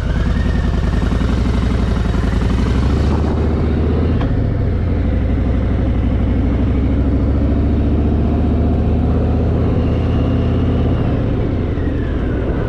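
Harley-Davidson Fat Boy's V-twin engine running as the motorcycle rides off, its pitch rising at the start and dropping off near the end.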